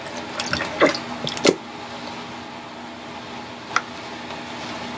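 Italian dressing being poured from a bottle into a mixing bowl, with a few sharp knocks and clicks of the bottle and bowl being handled in the first second and a half and once more later, over a steady low hum.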